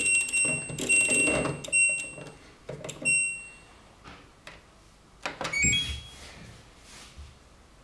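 LG Turbo Wash front-loading washer's control panel beeping: about four short electronic beeps at one high pitch in the first few seconds, with clicks among them. A brief rising two-note beep follows about halfway through.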